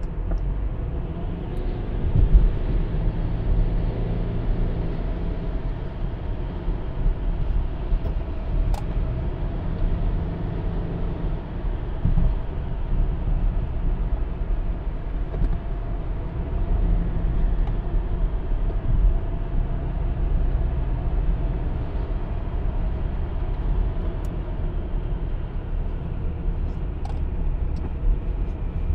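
Inside the cabin of a Subaru Legacy 2.0 with a CVT on the move: a steady low rumble of road, tyre and engine noise, the flat-four petrol engine holding a fairly constant note with no gear-shift steps.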